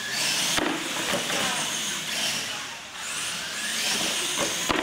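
Electric R/C monster trucks racing on concrete: motor whine and tyre noise rising and falling as they accelerate, with sharp knocks about half a second in and near the end as the trucks hit the ramps.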